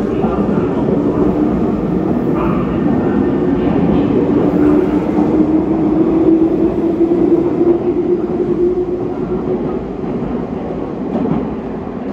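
Meitetsu red-and-white limited-express electric train running close past an underground station platform: a continuous rumble of wheels and running gear with a motor hum that rises slightly in pitch, loudest a little past halfway, then dying away.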